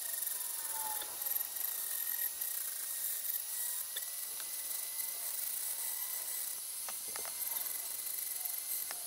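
Flex-shaft rotary grinder with a cone-shaped bit grinding the inside of an aluminium cylinder head's intake port, played back at ten times speed as a high, steady whir.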